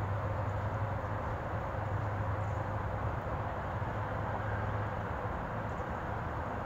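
Steady rushing outdoor background noise with a low rumble underneath that eases off near the end.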